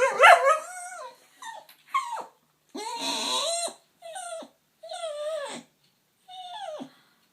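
Staffordshire bull terrier making a string of funny whiny, grumbling vocal calls, about seven in all, most sliding down in pitch at the end, the longest about three seconds in. She is sounding off at workmen she can hear but not see.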